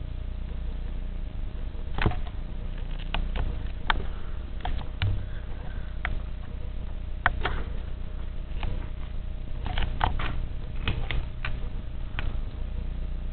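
Sharp, irregular clicks and taps, about twenty of them starting around two seconds in, over a steady low hum.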